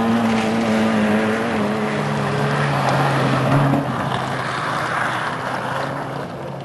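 Rally car engines running hard on a gravel stage. A higher engine note fades out about two and a half seconds in, while a lower one carries on.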